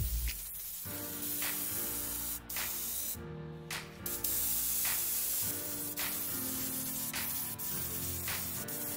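Airbrush spraying paint in a steady hiss that stops for about half a second a few seconds in, over background music with a steady beat.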